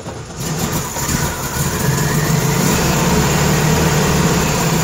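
Air-cooled flat-four engine of a 1972 VW Variant with twin Solex carburettors catching and building up over the first second or two into a steady fast idle. It idles high because the throttle stop screws have been turned well up to keep the engine running.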